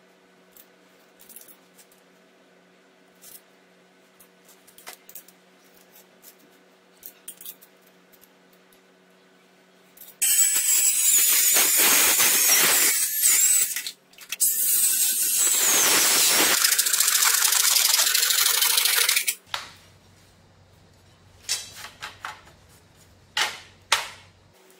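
Handheld Makita circular saw cutting through aluminium sheet: loud cutting noise starting about ten seconds in and lasting about nine seconds, in two passes with a short break between them. Before and after it there are light clicks and taps from a marker and ruler on the metal.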